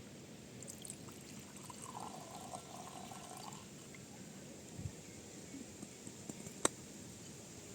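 Faint pouring of liquid for a couple of seconds, then a single sharp click near the end.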